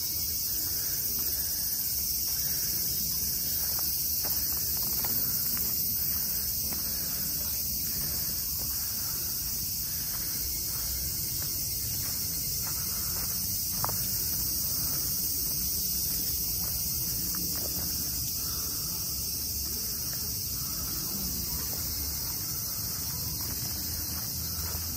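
Steady high-pitched insect chorus, a continuous shrill drone, with soft footsteps faintly underneath.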